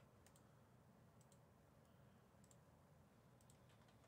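Near silence with scattered faint clicks of a computer mouse, a few of them close together near the end.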